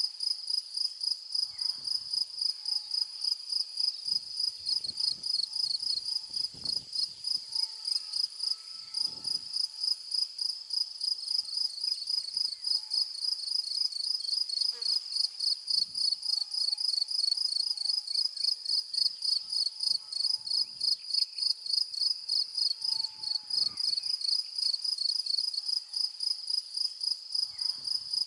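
Insects, crickets or bush-crickets, chirping in the grass: a steady, high-pitched train of even pulses, about two or three a second, with a few faint low thumps.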